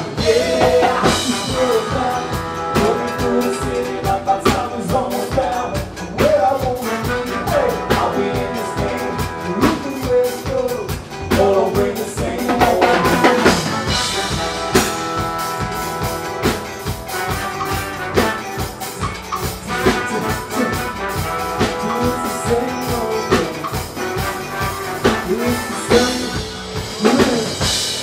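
Live band music: a drum kit and extra percussion drums keep a driving beat under electric guitar, trombone and a voice at the mic.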